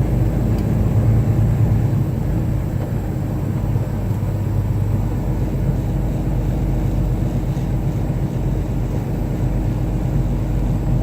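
Tractor-trailer's diesel engine and road noise heard from inside the cab, a steady low rumble as the truck rolls along at low speed.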